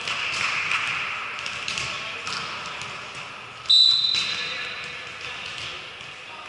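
Volleyball being played in an echoing gym: players' voices and scattered sharp knocks of the ball. About three and a half seconds in, a single short, shrill referee's whistle blast, the loudest sound.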